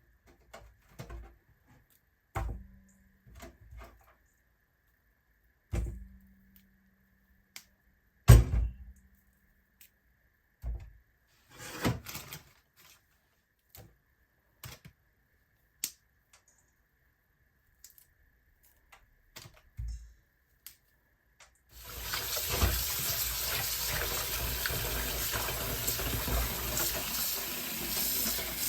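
Scattered light knocks and clunks of things being handled, the sharpest about eight seconds in. About 22 seconds in, a tap is turned on and water runs steadily into a sink.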